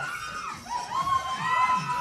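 An audience crowd shouting and cheering, with many voices whooping at once and a brief lull about half a second in.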